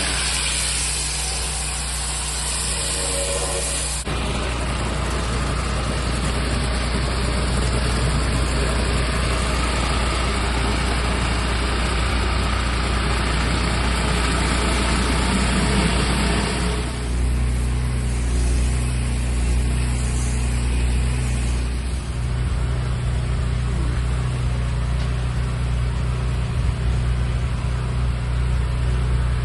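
Pressure washer engine running steadily under a broad hiss. The hiss drops away about two-thirds of the way through while the engine keeps running.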